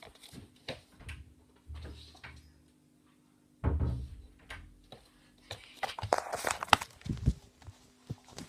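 A door being opened and closed to let a cat out: a few low thumps, a short quiet spell, then a run of knocks and clicks.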